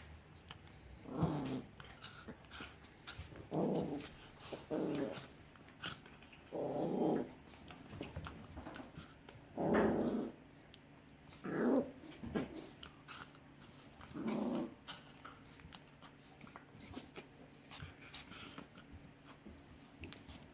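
Dogs growling at each other in rough play: about seven short growls a second or two apart, with faint clicks and scuffles between them.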